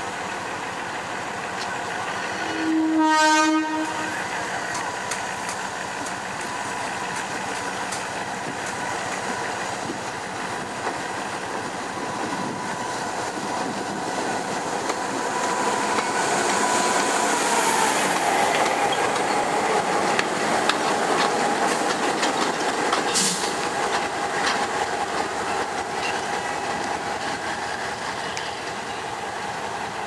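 GM G22 diesel-electric locomotive sounding its horn once, briefly, about three seconds in, then running steadily as it moves slowly past. The engine grows louder and its tone drops slightly as it passes close, then fades, with a sharp knock from the wheels over the switches shortly after.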